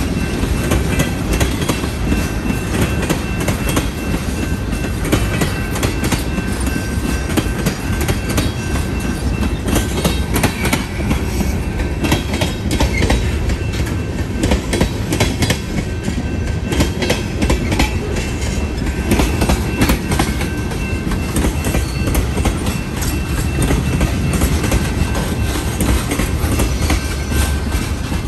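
Freight train of tank cars rolling past close by: a steady low rumble with a continuous clatter of steel wheels over the rail joints.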